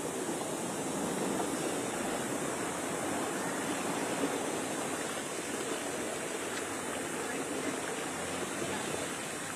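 Steady rushing noise of water and wind across the flooded street, with a car driving through the shallow muddy floodwater about four seconds in.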